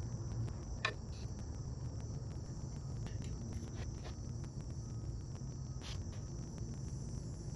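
A few light metal clicks and taps from hand work on a CNC router spindle mount, over a steady low hum and a steady high-pitched chirr.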